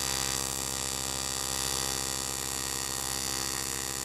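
AC TIG welding arc on aluminum, from an Eastwood TIG 200 AC/DC welder, buzzing steadily as it melts the edge of a hole.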